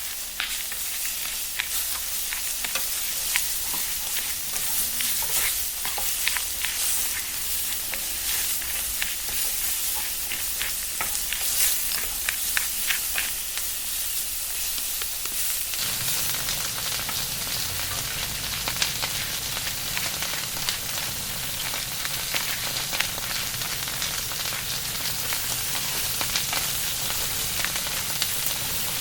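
Steady sizzling hiss like food stir-frying in a pan, full of small crackles. About halfway through, a low hum joins it.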